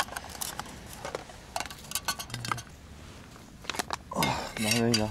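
Light clinks and clatter of camp tableware and utensils handled during a meal, scattered short clicks throughout. A brief wavering hum of a man's voice near the end.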